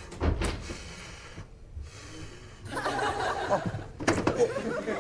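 Laughter breaking out about three seconds in and carrying on, after a short thump near the start.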